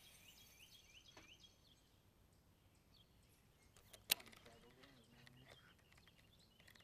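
Near silence with faint bird chirps, broken about four seconds in by one sharp knock as a hand bumps the camera.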